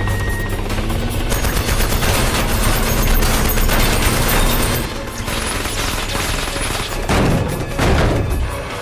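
Rapid bursts of automatic gunfire and bullet impacts over a film score, densest in the first half and thinning out, with two heavier surges of noise near the end.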